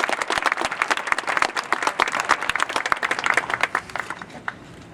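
Stadium crowd applauding, with many dense hand claps that thin out and die away about four seconds in.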